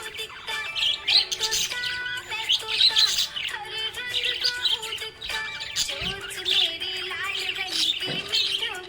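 Budgerigar chirping and warbling in a rapid run of short, high chirps, over background music.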